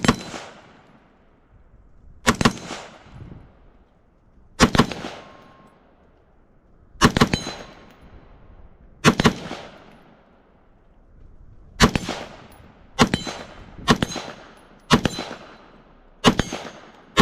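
AR-15 rifle firing 5.56 rounds in single shots, each with an echoing tail: five shots about two seconds apart, then quicker, about one a second, for some ten shots in all.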